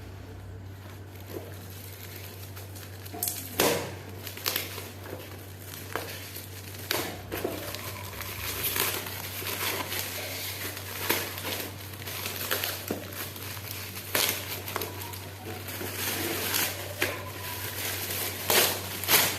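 Wrapping paper on a gift being crumpled and crinkled by hand as the gift is unwrapped, in irregular crackles starting about three seconds in. A steady low hum runs underneath.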